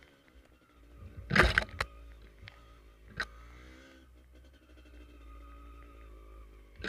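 A vehicle engine running steadily, with sudden loud knocks about a second and a half in, a smaller one near the middle, and the loudest at the very end.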